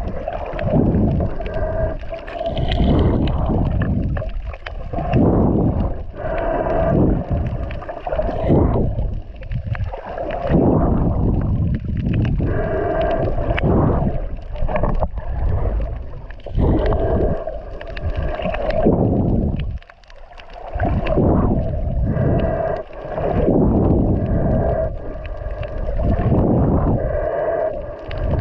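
Muffled underwater water noise: water rushing and sloshing against the camera, coming in surges every second or two as the swimmer moves.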